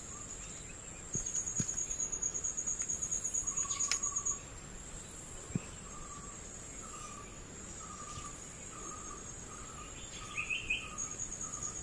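Forest insects trilling in the canopy: a rapid, high pulsing trill from about a second in until about four seconds, which starts again near the end. Through the second half a lower chirp repeats about twice a second, and a short warbled call comes near the end.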